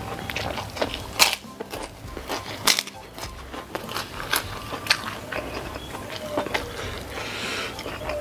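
Biting and crunching a crispy white kerupuk cracker, then chewing, with a few sharp, loud crunches, the strongest about a second in and again near three seconds in.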